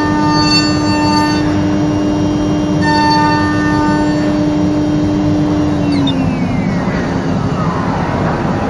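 Biesse Rover A CNC router spindle running with a steady whine over a constant rushing noise while machining a white panel, a brighter ringing tone coming and going twice. About six seconds in, the whine drops in pitch and falling glides follow as the machine changes from cutting to moving its head.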